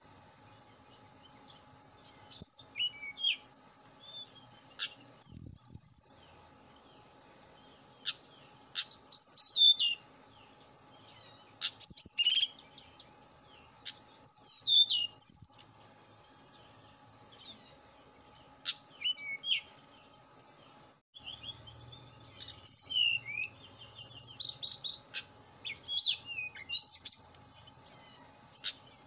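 Hill blue flycatcher singing: short phrases of high, thin whistled and warbled notes in bursts every few seconds with pauses between, coming thicker and faster in the last third. A single louder thump comes about five seconds in.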